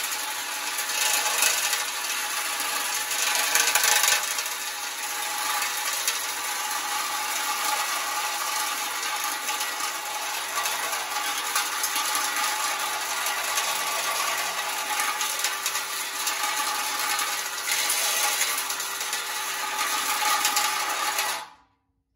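Drill running steadily, spinning a thin steel cable flail inside a 1968 Corvette frame cross member. The cable rattles and scrapes against the rust scale inside the frame rail. The sound cuts off suddenly near the end.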